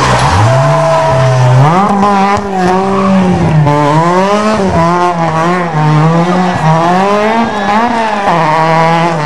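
Renault Clio rally car's engine revving hard through a hairpin, its pitch rising and falling again and again as the driver accelerates, lifts and changes gear.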